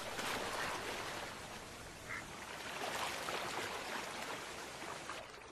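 River water splashing and rushing, with a couple of faint short calls.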